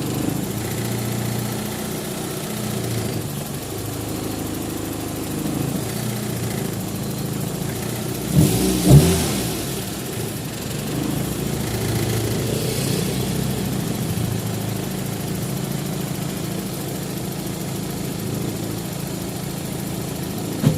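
Toyota Corolla's four-cylinder engine idling steadily, its distributor newly replaced to cure hard starting, with a short rev about eight and a half seconds in.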